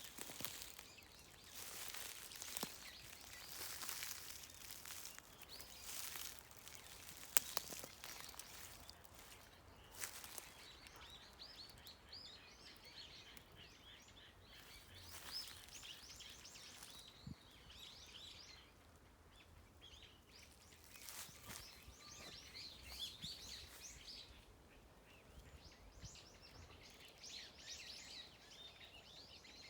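Small birds chirping faintly in clusters of quick, high notes from about ten seconds in. Before that there are gusts of rustling noise and one sharp click.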